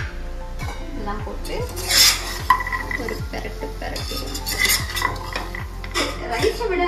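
Steel slotted ladle stirring chopped vegetables in a stainless steel pressure cooker: irregular metal scrapes and clinks against the pot, the loudest clank about two seconds in.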